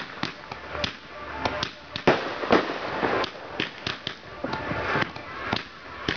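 Fireworks display: ground-launched aerial shells and comets going off in quick succession, over a dozen sharp bangs and pops at irregular intervals. The loudest comes about two seconds in.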